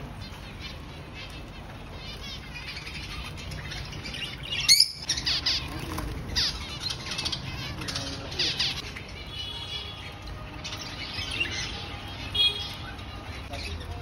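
A crowd of caged small birds, zebra finches among them, chirping and calling over one another above a steady low hum. One sharp loud burst stands out about five seconds in.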